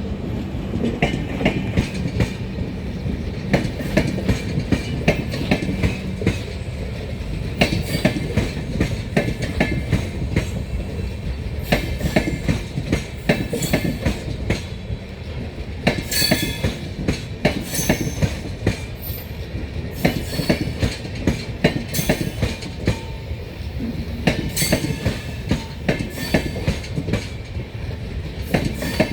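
Train running along the track: a steady rumble with many quick clicks of the wheels passing over rail joints.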